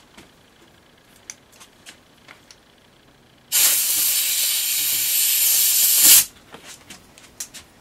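Compressed-air blow gun blasting in one steady hiss for nearly three seconds, starting about three and a half seconds in and cutting off sharply. It is blowing the chips out of a freshly tapped hole. A few faint clicks come before it.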